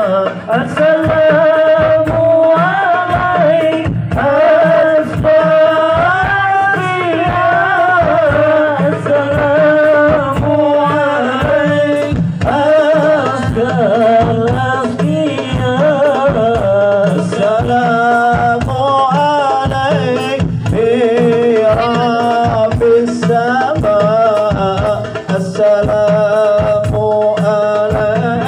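Sholawat, Islamic devotional singing in Arabic, by a group of male voices over a steady, fast beat of hand drums.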